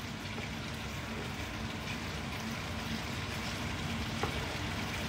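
Steady background noise: an even low hum and hiss with a faint steady tone, with no single event standing out.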